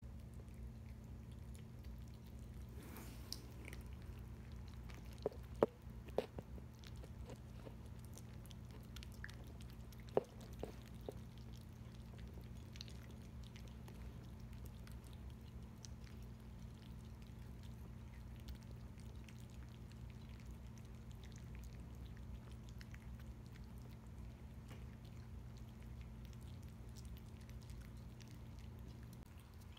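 Cats eating from bowls: quiet chewing and licking with scattered small clicks, a few sharper ones about five to six seconds and ten seconds in, over a steady low hum.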